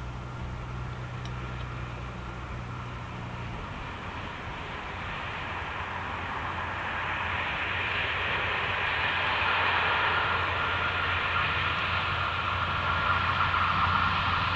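A ZSSK class 757 'Brejlovec' diesel locomotive hauling a passenger train as it approaches, its engine and running noise growing steadily louder. A deep steady hum drops away about four seconds in.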